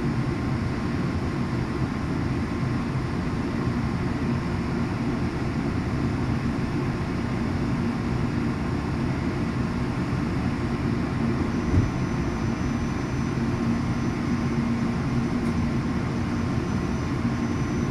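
Steady low rumble and hum inside a moving Hawker Siddeley bilevel passenger coach, its wheels running on the rails. A single short knock about twelve seconds in.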